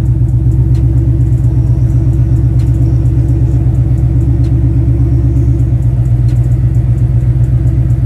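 Ford Mustang GT's 5.0 V8 idling steadily, heard from inside the cabin. After a clutch job the engine has a misfire problem that calls for a misfire relearn.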